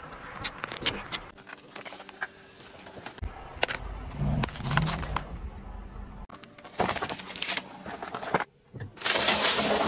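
Car tyre slowly rolling over and crushing objects on asphalt, including plastic shampoo bottles, a phone and soft packaged food. It gives a string of sharp cracks, crunches and squelches, with louder bursts of crushing noise near seven seconds and again in the last second.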